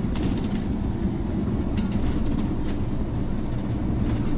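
Steady low road rumble inside a moving coach: engine and tyre noise carried through the cabin, with a few light clicks and rattles.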